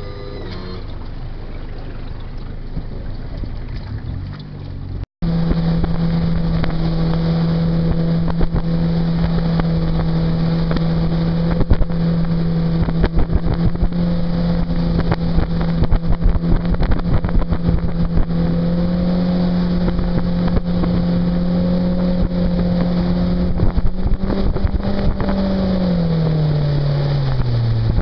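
Mercury 60/40 outboard jet motor under way: quieter for about the first five seconds, then running loud and steady at cruising speed with wind buffeting the microphone. Near the end the engine note drops in pitch as it throttles back.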